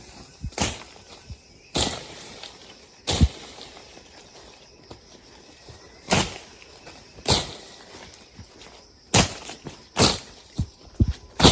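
A series of sharp thuds with a crisp, crunching edge, about eight of them at uneven gaps of one to three seconds.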